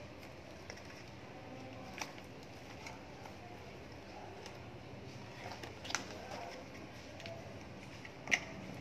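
Packaging being handled: a few short, sharp crinkles and taps as plastic bubble wrap and small cardboard product boxes are moved. The loudest comes near the end, over a low, steady background hum.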